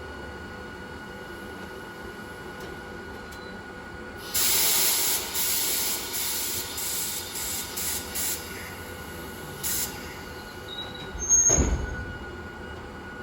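Compressed air hissing out in a string of sharp bursts from a vintage Hakone Tozan Railway Moha 1/Moha 2 electric railcar's air system, the kind of venting heard during brake testing, over a steady electrical hum. Near the end comes a single heavy clunk with a brief squeal.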